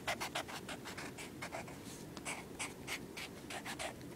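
Eraser rubbing back and forth on paper, quick scratchy strokes several a second, as stray pencil lines are erased.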